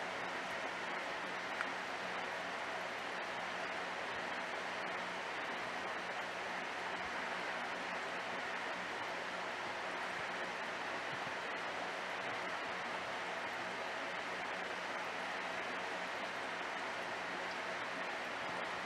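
Steady trickling hiss of water from an aquarium filter, with a low steady hum underneath.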